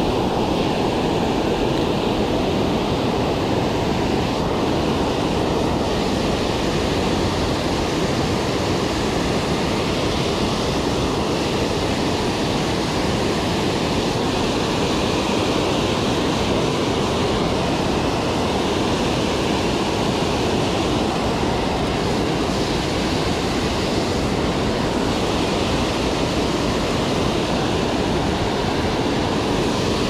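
Water pouring over a low concrete spillway dam and churning into the river below, a steady, unbroken rushing.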